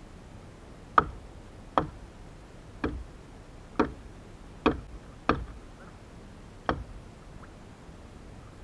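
Seven sharp knocks at uneven intervals of about a second: blows struck with a yellow-handled hand tool onto something hard.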